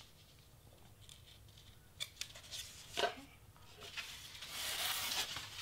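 Craft knife cutting through cardstock on a self-healing cutting mat: faint, with a sharp tick about two seconds in, a louder one about three seconds in, and a longer scratchy stretch of cutting near the end.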